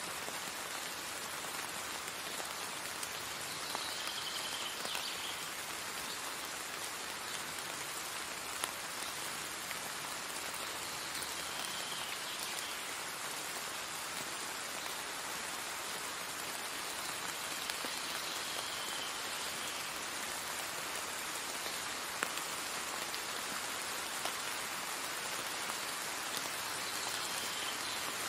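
Steady rain falling on a wet paved path and garden plants: an even hiss with a few sharper drip ticks. A faint short high call recurs about every seven seconds.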